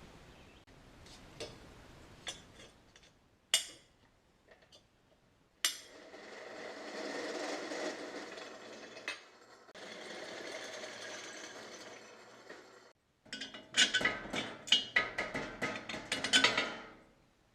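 Steel parts being handled and fitted together: scattered clicks, two sharp metal knocks, a steady rasping passage, then a quick run of clanks and knocks near the end.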